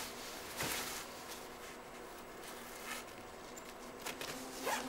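Faint fabric rustling and a few soft knocks as padded bandy breeches are pulled up and settled at the waist.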